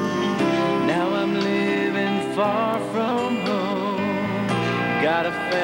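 Country song playing: an instrumental stretch between sung lines, with guitar and a wavering melody line.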